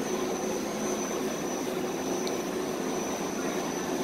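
Steady mechanical drone with a thin, high, constant whine over it, unchanging throughout.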